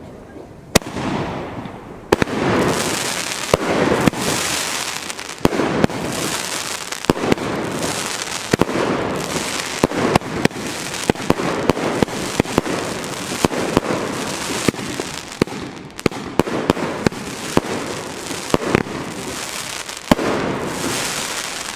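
Firework battery (cake) firing shot after shot, a loud burst about every second or so, with sharp cracks between them as the shells break in the air.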